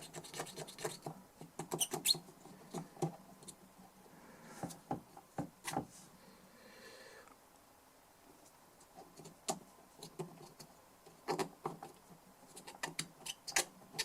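Scattered light clicks and scratches at irregular intervals from hand work on a small DI box: its rusty, dirty contacts being scrubbed clean.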